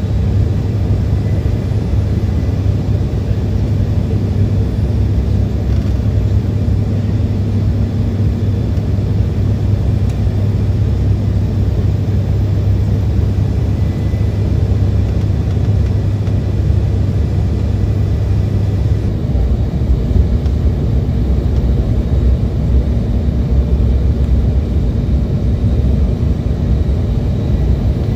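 Cabin noise of an Embraer 170 in flight, heard from a window seat beside its GE CF34 turbofan engine: a steady, loud low rumble of engine and airflow with a faint high whine. The rumble shifts slightly lower about two-thirds of the way through.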